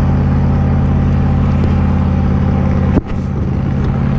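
Small outboard motor running steadily, pushing the canoe along at trolling speed. About three seconds in there is a sharp knock, and the motor note briefly dips and turns less even.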